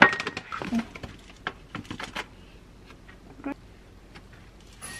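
A ceramic bowl set down on a countertop with a sharp knock and a short ring, followed by scattered light clicks and taps of kitchen things being handled. Near the end, dry whole-oat grains pour from a plastic measuring cup into the bowl with a brief rattling hiss.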